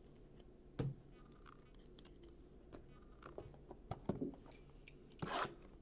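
Faint handling noise from a stack of trading cards and a cardboard card box: a single knock about a second in, then scattered light taps and clicks, and a short rustle near the end.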